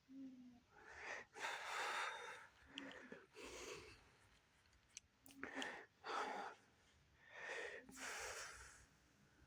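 A person breathing loudly close to the microphone: a series of airy breaths in and out, each about half a second to a second long.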